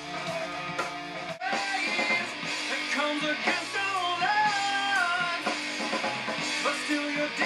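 Stoner rock band track with guitar and a male vocal take sung over it, heard through studio control-room monitors; the band gets fuller about a second and a half in.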